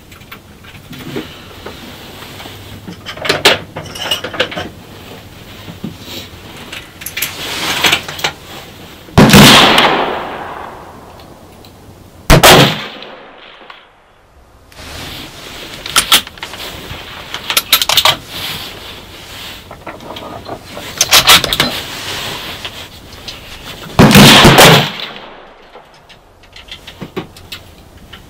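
Three loud .308 Winchester rifle shots from a muzzle-braked Tikka T3X CTR bolt-action, each with a ringing echo after it. The first comes about a third of the way in, the second three seconds later, and the third near the end. Smaller sharp sounds fall between them.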